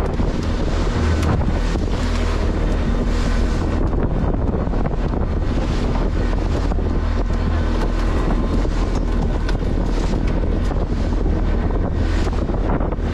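Wind buffeting the microphone aboard a small fishing boat under way, with a steady engine drone underneath.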